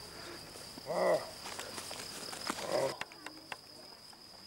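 A man's short wordless vocal sounds, one about a second in and another just before three seconds, over a steady high-pitched whine. A few light clicks follow.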